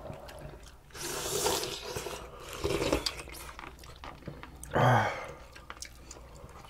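Eating sounds from spicy pollack stew: chewing and slurping as spoonfuls of broth and pieces of fish and kimchi are eaten, in a few separate bursts.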